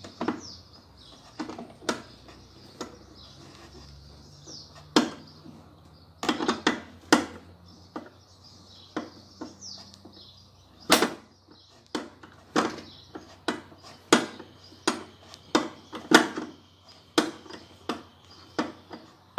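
A 13 mm wrench clinking and knocking on bolts and sheet-metal parts of a washing machine as a bolt is tightened: sharp, irregular metallic strikes, some loud, at about one every half second to a second.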